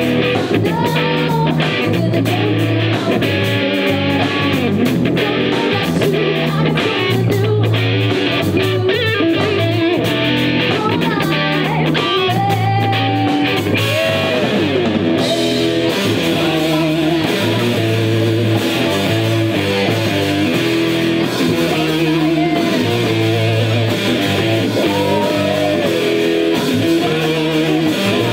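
Live rock band playing: electric guitar, bass guitar and drum kit, with a woman singing.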